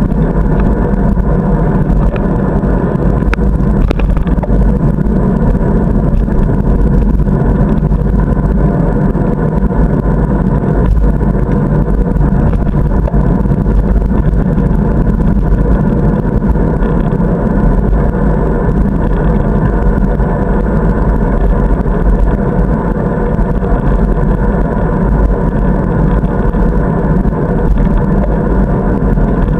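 Steady, loud wind rumble and rolling noise picked up by a camera mounted on a moving bicycle.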